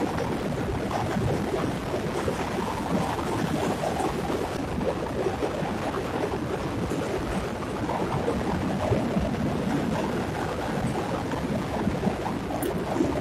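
Wind rushing over the camera microphone while cycling along a paved road, a steady buffeting noise.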